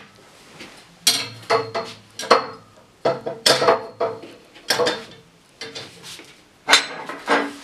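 Black metal frame pieces of an IKEA FREDDE desk clanking and knocking as they are handled and fitted into place: about a dozen irregular metallic clanks, each ringing briefly.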